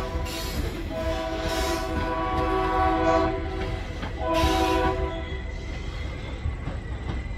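A diesel locomotive's air horn blows a chord: the tail of one blast right at the start, a long blast of about two seconds beginning a second in, and a short one about four and a half seconds in. Under it runs the low, steady rumble of freight cars rolling over the rails.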